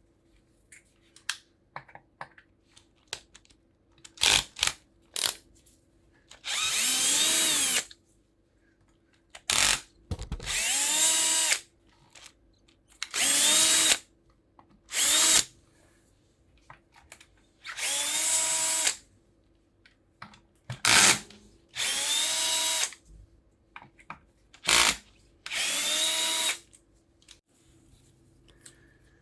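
Cordless drill-driver run in repeated bursts of one to two seconds, each spinning up and winding down, with short blips of the trigger between them, as it backs screws out of an e-bike motor's housing.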